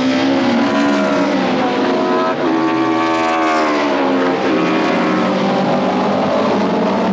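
Touring-car racing engines running at high revs, their pitch rising and falling as the cars accelerate and lift off through the corners.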